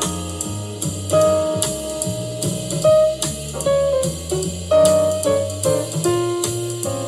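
Instrumental music with a drum beat playing through the M4 iMac's built-in speakers, picked up by a microphone a short distance away with all audio enhancements disabled: a test of how the speakers sound.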